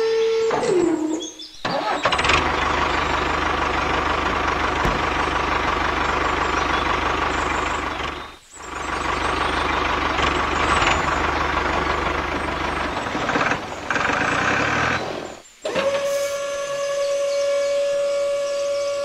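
A small electric motor whines at a steady pitch, then slows and stops about a second in. A loud, noisy engine-like running sound follows, cut off briefly twice. Near the end the steady motor whine starts up again.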